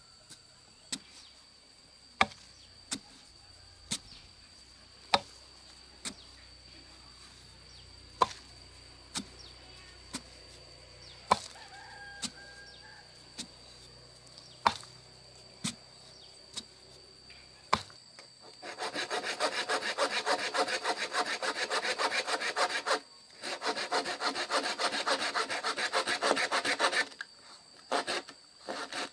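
A long-handled spade chopping into hard soil to dig a post hole, with sharp strikes about once a second. Then a handsaw cutting through a thick bamboo pole in fast, even strokes, pausing briefly once.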